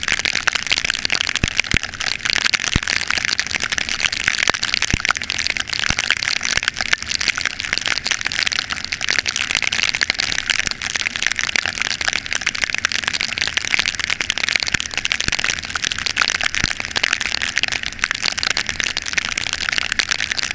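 Steady hiss of heavy rain, full of fine crackles and the odd sharp tick.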